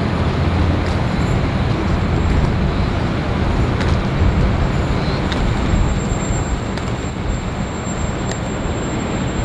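V/Line VLocity diesel multiple unit running away along the track, its diesel engines giving a steady low rumble that eases off over the last few seconds as the train recedes.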